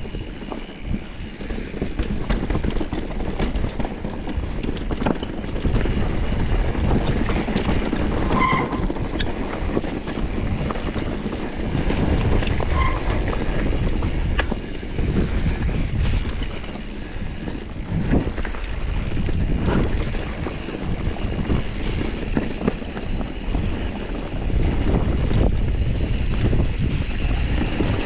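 Mountain bike rolling down a rocky trail: a steady rattling rumble of tyres and frame over stones with many small knocks, wind buffeting the microphone, and two short squeaks near the middle.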